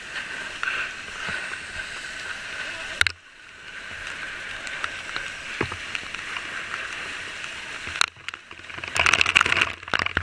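Fire hose spraying water: a steady rushing hiss with a few sharp clicks, then a louder burst of spattering spray about nine seconds in.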